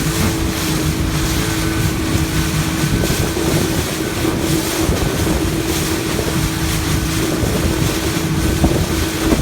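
Motorboat engine running steadily with a constant low drone, with wind buffeting the microphone.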